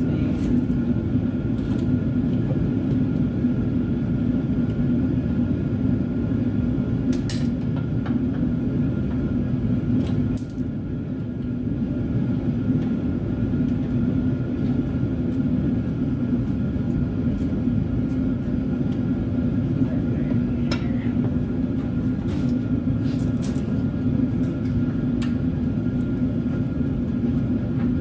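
Steady low rumble of a garage heater running, with a few light clicks and clinks of tools on metal.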